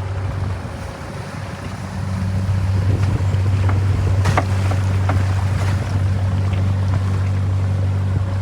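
A boat engine running steadily, a low even hum, with wind and water noise over it. The hum grows louder a couple of seconds in, and a few sharp clicks or knocks come around the middle.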